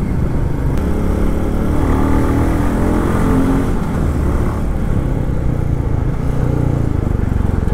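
Motorcycle engine running steadily as the bike is ridden along a road, its note rising briefly about two to three seconds in.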